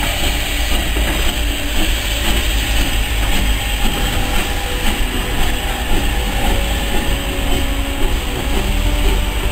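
A steam train rolling past slowly: a carriage and then GER J15 0-6-0 steam locomotive No. 564, with a steady low rumble.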